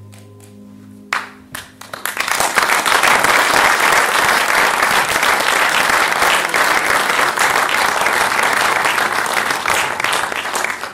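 Audience applauding in a hall after a spoken piece: a few scattered claps about a second in, quickly swelling into full, steady applause that begins to thin near the end. Soft sustained music notes fade out under the first claps.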